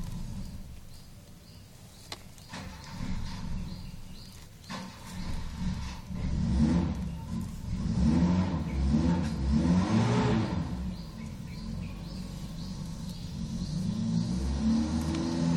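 A motor vehicle's engine running and revving, its pitch rising and falling. It is loudest around the middle, fades, then builds again near the end.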